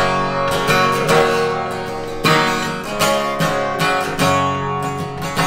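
Acoustic guitar being strummed, full chords struck again and again and left ringing between strokes.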